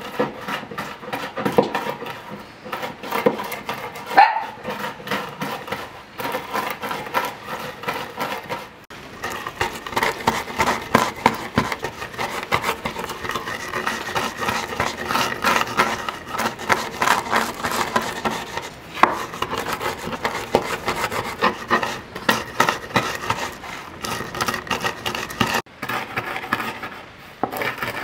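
A hand-held stone crushing and grinding nuts on a wooden cutting board: a dense, continuous run of crunching and scraping strokes of stone against wood, with short breaks about nine seconds in and near the end.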